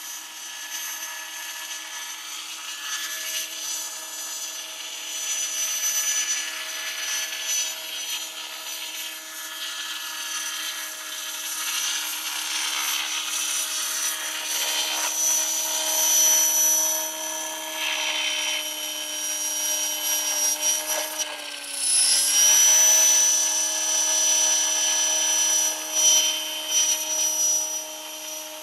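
Radio-controlled model helicopter in flight, a steady high whine from its motor and spinning rotor that swells and fades as it moves about. About three-quarters of the way through, the pitch sags briefly and then recovers.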